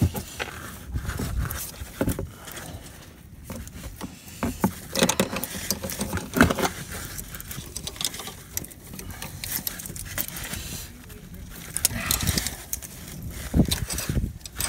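Spanners clicking, knocking and scraping on a rusted anti-roll bar link nut as it is worked back and forth while its spinning stud is counter-held: irregular metallic clicks and knocks.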